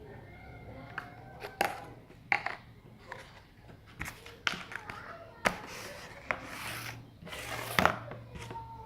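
Hands handling small objects and materials: scattered sharp taps and clicks, with a stretch of rubbing and rustling between about five and eight seconds in.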